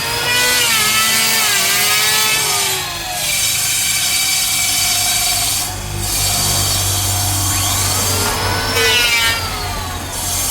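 Electric power tool cutting Bayur wood in three long passes with short dips between them, its motor whine sagging and recovering in pitch as it takes the load.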